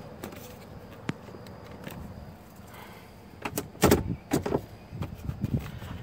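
Hard plastic steering-column shroud being pushed and wiggled into place around the turn signal lever: one sharp click about a second in, then a run of sharp plastic clicks and knocks in the second half.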